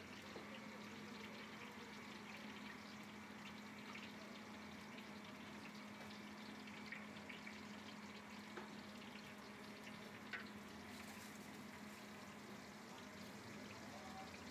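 Hot oil faintly sizzling and crackling in a large aluminium cooking pot. The sizzle grows louder in the last few seconds as sliced onions go into the oil.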